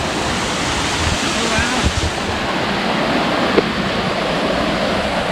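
Steady, loud rush of falling and flowing water from a rainforest stream or waterfall.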